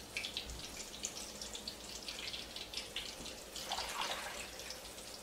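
Faint water sounds at a kitchen sink, with small drips and splashes as hands are rinsed in the sink water.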